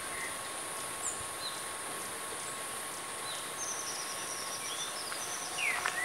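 Woodland ambience: a steady high insect drone with scattered faint bird chirps, a run of thin high notes about midway, and a clearer down-slurred bird whistle near the end.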